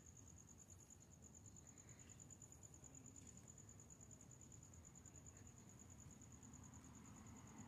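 Near silence with a faint, steady, high-pitched trill of crickets.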